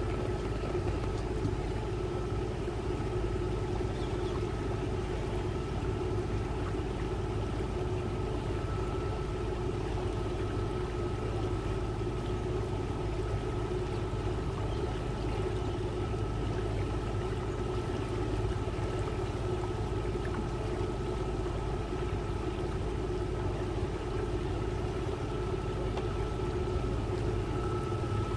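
A boat's engine running steadily, heard on board: a constant low drone with a thin, steady whine above it.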